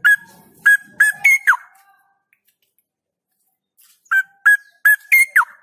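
Straw-headed bulbul singing two loud short phrases a few seconds apart, each a quick run of four or five clear notes that step up slightly and end in a falling slur.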